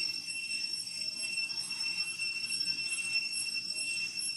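Cicadas droning steadily at a high pitch, with a faint, even pulsing above the drone.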